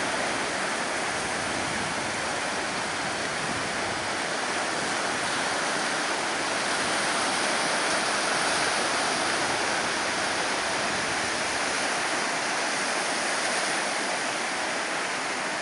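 Steady rushing wash of ocean surf from a hurricane swell breaking offshore, swelling slightly louder about halfway through.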